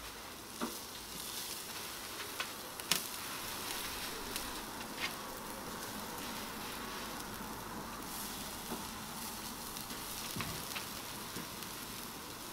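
Marinated chicken sizzling on a charcoal barbecue grill: a steady hiss broken by a few sharp clicks.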